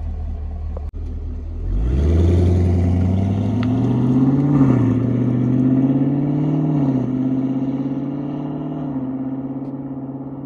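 2021 Camaro SS's 6.2-litre LT1 V8 through its dual-mode exhaust in Sport mode, idling and then pulling away gently: about two seconds in the engine note rises, drops back at two upshifts, then settles and fades near the end.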